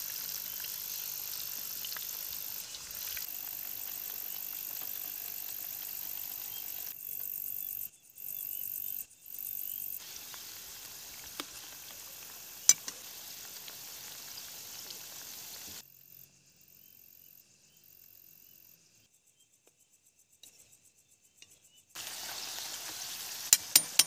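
A batch of spice-marinated pieces deep-frying in hot oil with a steady sizzle. The sizzle drops out briefly twice and for several seconds past the middle. There are a few sharp metal clinks of a utensil against the pan, one near the middle and two near the end.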